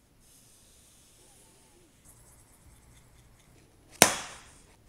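Faint hiss of a brush painting lubricant onto paper, then about four seconds in a single sharp slap as a sand-covered paper sheet is dropped from two inches onto a plastic tub, with the loose sand scattering off.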